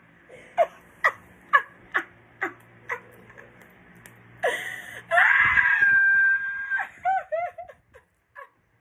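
A woman laughing hard: a run of short laughs about two a second, then a long high-pitched shriek of laughter about five seconds in, breaking into a few quick falling 'ha-ha-ha's.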